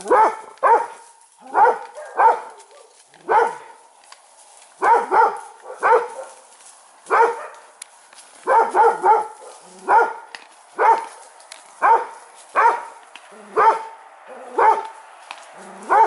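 An animal barking over and over: short barks at roughly one a second, now and then two or three in quick succession.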